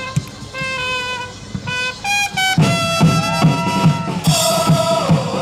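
A supporters' trumpet plays a chant melody in held notes. About two and a half seconds in, a steady drum beat of about three beats a second joins it. Near the end, the crowd of supporters starts singing the chant along with them.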